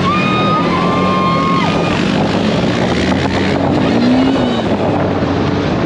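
Motorcycle engine running at riding speed with wind on the microphone, and a horn sounding a steady two-note blast for about a second and a half near the start.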